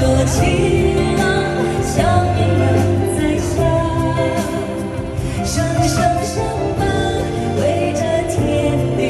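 A pop ballad performed live, with a singing voice over full instrumental backing.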